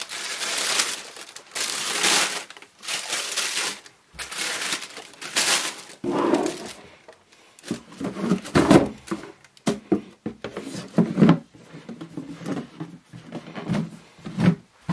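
Tissue paper rustling in several long sweeps as it is folded over inside a cardboard shoe box, then a series of dull knocks and scrapes as the box lid is fitted and the box is shifted about on a table.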